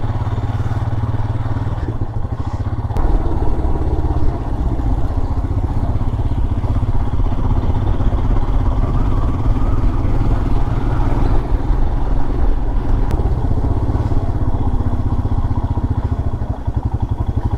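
Motorcycle engine running steadily under way, its loudness stepping up slightly about three seconds in.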